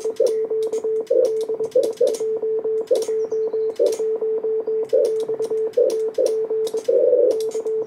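Morse code sidetone from an HF transceiver sending a CW CQ call at about 22 words per minute: a steady mid-pitched beep keyed on and off in dots and dashes, with sharp clicks and bursts of hiss between characters.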